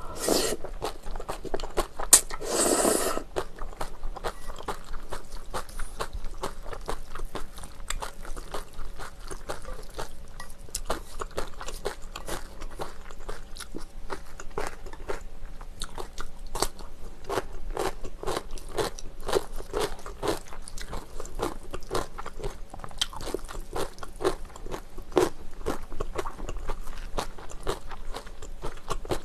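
Close-miked eating of spicy bibim noodles and kimchi: a loud slurp of noodles about two to three seconds in, then steady crunchy chewing with many sharp wet mouth clicks.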